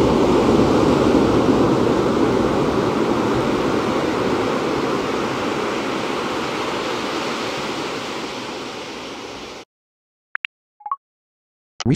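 iOS 15 Background Sounds ocean track: a steady wash of surf-like noise that slowly fades over the last few seconds and stops abruptly about ten seconds in. A few short faint electronic blips follow.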